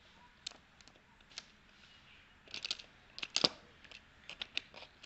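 Handling the parts of an opened pneumatic impact wrench: scattered small clicks and knocks, with a short run of sharper clinks about two and a half to three and a half seconds in. The loudest of these is near three and a half seconds.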